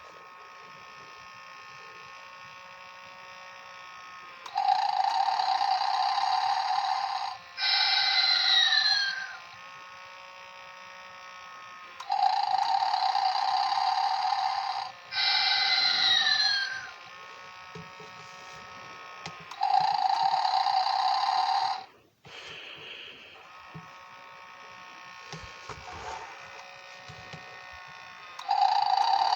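Animated snoring Santa toy playing its recorded snoring: loud buzzy snores come every seven or eight seconds, and two of them are followed by a whistling breath out that falls in pitch. Between snores a quieter sound of several steady tones carries on.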